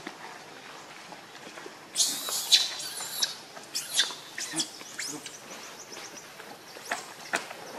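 Young pig-tailed macaque screaming: a loud burst of high-pitched squeals about two seconds in, then shorter sharp cries and chirps.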